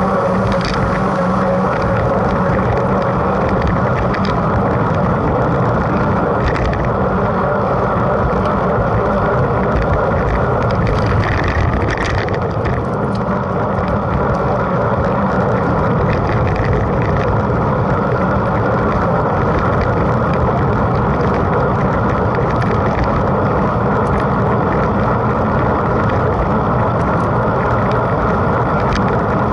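Steady rushing noise of a mountain bike being ridden in a race: wind buffeting the onboard camera's microphone mixed with tyre and drivetrain noise, with a few faint clicks.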